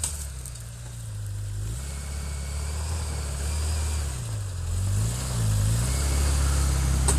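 Off-road 4x4 engine running at low revs, its pitch dipping and rising a few times about halfway through as the throttle is worked.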